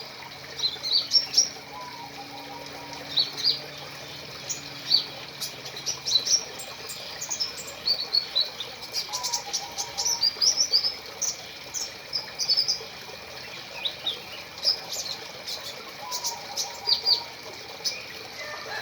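Small bird chirping: many quick, high chirps and short trills repeated over and over, above a steady faint high-pitched tone.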